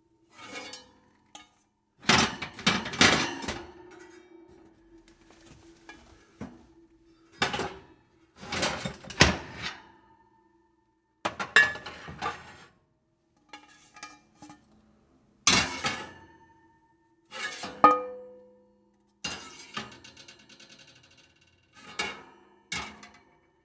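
Metal oven pans and baking trays being handled, clattering and clanking against each other in about ten separate bursts, some hits leaving a brief metallic ring.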